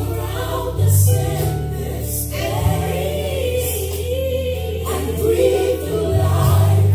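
Gospel worship song with a choir singing sustained lines over a deep, steady bass line.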